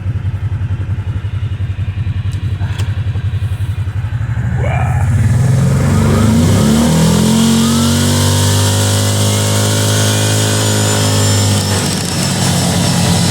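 ATV engine running at low speed with an even pulsing, then picking up speed about four to five seconds in and holding a steadier, higher run. Rising whine and wind and tyre hiss come in as it speeds up, and there is a brief dip near the end.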